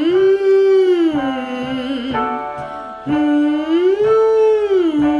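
A woman singing a vocal warm-up siren low in a soprano's range: twice she holds a note, slides up a few notes, holds, and slides back down. Electronic keyboard notes sound along with her voice.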